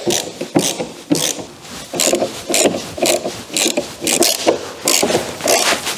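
Hand tool turning out the T30 Torx bolts on a car tailgate's top trim: a run of short rasping, clicking strokes, about two to three a second.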